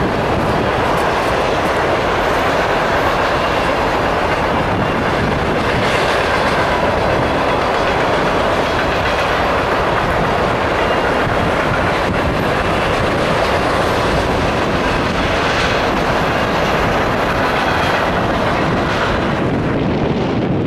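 Freight train flatcars rolling past close by: a loud, steady rumble with the clatter of steel wheels on the rails.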